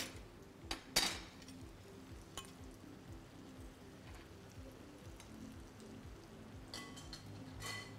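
Metal cooking utensils (a carving fork and a ladle) clinking against each other and the frying pan while spaghetti is twirled, a few sharp clinks with the loudest about a second in and a cluster near the end, over a faint sizzle from the pan on the burner.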